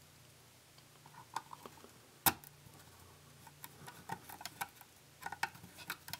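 Small scattered clicks and ticks of a screwdriver and a tiny self-tapping screw being fitted into a plastic HO scale boxcar's truck mount. One sharper click comes about two seconds in, and a run of light ticks follows in the second half.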